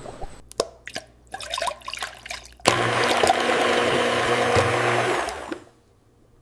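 Liquid splashing in short bursts, then a motor-driven machine churning liquid loudly and steadily for about three seconds over a low motor hum, stopping sharply near the end.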